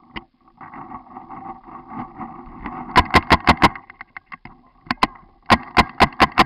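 Paintball marker shots: quick strings of sharp pops, about six a second. One burst of five comes about three seconds in, and another rapid burst starts near the end.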